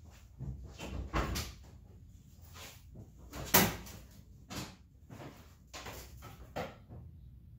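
A series of separate knocks and clunks, the loudest about three and a half seconds in.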